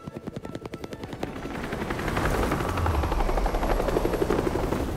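Helicopter rotor sound: a rapid, even beating of the blades that grows louder about two seconds in.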